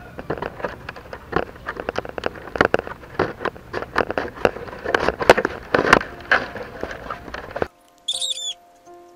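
Dry bamboo strips clicking and crackling in a dense, irregular run as they are worked by hand through the woven rim of a bamboo basket. It cuts off abruptly near the end, and a short high chirping call follows.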